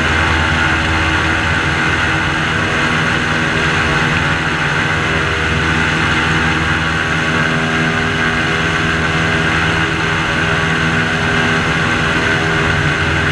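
Airboat engine and propeller running steadily at cruising speed, a loud even drone with no change in pitch.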